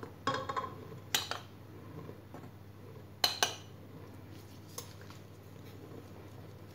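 Light clinks and knocks of a bowl and utensil against a stainless-steel mixer bowl as flour is tipped and pushed in, a handful of sharp taps in the first five seconds, then only a faint steady hum.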